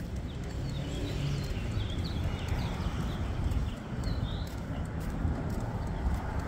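Footsteps of a person and a dog walking on a concrete sidewalk over a steady rumble of wind and phone-handling noise. A bird chirps several times in the first half.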